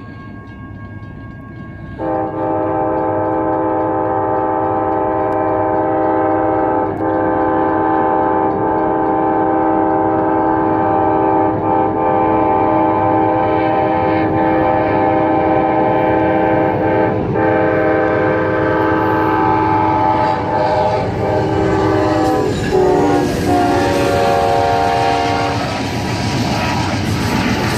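Amtrak Auto Train locomotive horn held in one long, loud chord, starting about two seconds in and lasting over twenty seconds. Near the end it stops and the train rumbles and clatters past.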